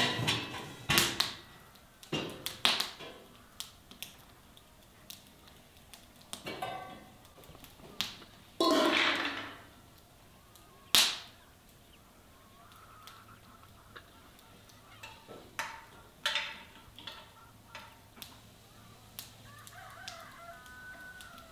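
Enamel cookware and kitchen utensils being handled and set onto wooden shelves and hooks: scattered knocks and clinks, with one longer, louder sound about nine seconds in.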